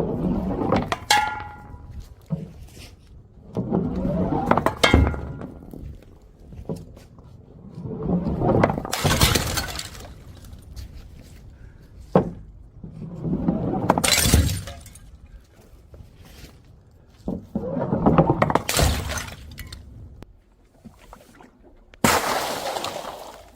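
Glass bottles thrown onto stairs, clattering down and shattering, about six times one after another. In the first crash the glass rings briefly.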